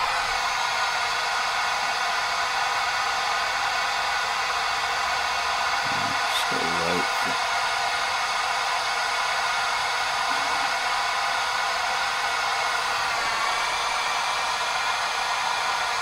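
Pink noise test signal played through loudspeakers and picked up by microphones: a steady, even hiss with little bass.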